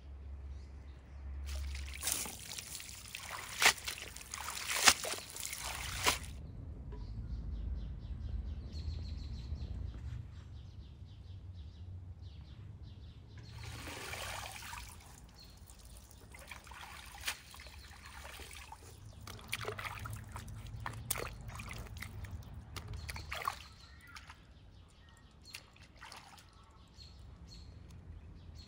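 A bunch of fresh herbs being washed in a basin of water: splashing and sloshing for a few seconds near the start, then water pouring and dripping off the bunch back into the basin as it is lifted out about 14 seconds in, followed by scattered small splashes and drips.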